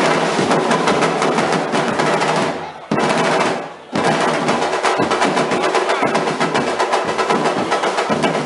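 Samba-reggae drum band playing live: big striped surdo bass drums and snares in a dense, driving rhythm. About three seconds in the drumming falls away twice and each time comes back in all together.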